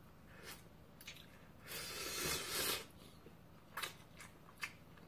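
A person quietly slurping instant ramen noodles for about a second, near the middle. Soft wet mouth clicks of chewing come before it and a few quick ones near the end.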